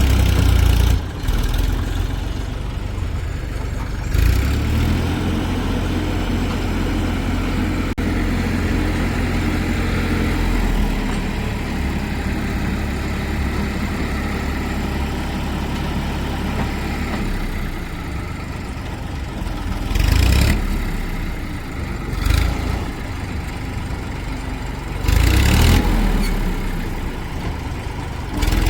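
Heavy diesel machinery engines running steadily, the engine note shifting partway through. Several short, loud bursts of noise come near the end.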